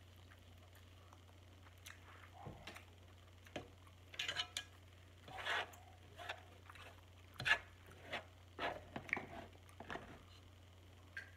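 Crab shell being cracked and picked apart by hand, close up: a run of irregular snaps, clicks and wet squishes of the meat, the sharpest snap a little past halfway.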